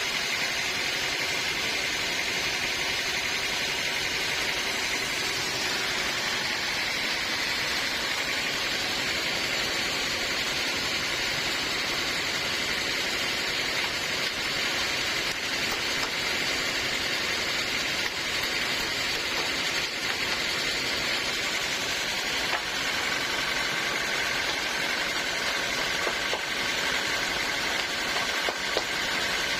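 Band sawmill running steadily with a constant machine drone and a high whine whose pitch shifts slightly twice.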